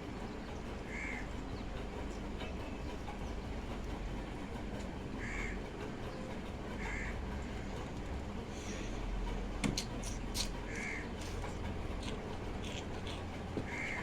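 A crow cawing, five short single caws spread out over several seconds, with a few sharp clicks about ten seconds in.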